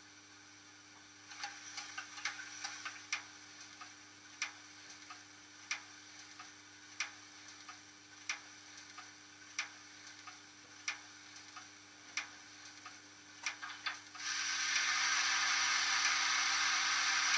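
Model steam locomotive's standing sounds: sharp clicks, irregular at first, then one about every 1.3 s. About 14 s in, a steady steam hiss starts suddenly and is the loudest sound.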